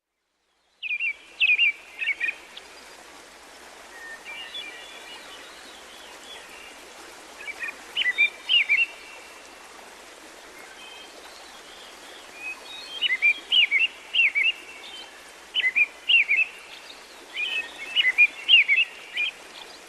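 Songbirds chirping and singing in short bursts of quick, warbling notes every few seconds, over a steady background hiss.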